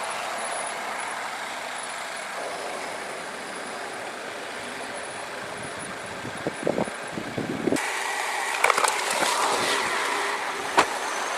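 Road traffic passing by as a steady rush, growing louder and brighter in the second half, with a few knocks and a sharp click near the end.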